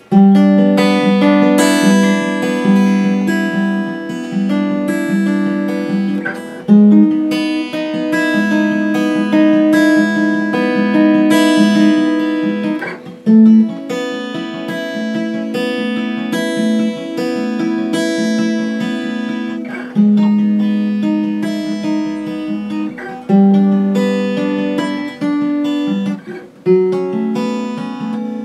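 Martin D-41 dreadnought acoustic guitar being played, a run of picked notes over ringing bass notes. The guitar has just been restored with a neck reset, re-fret and compensated nut and saddle.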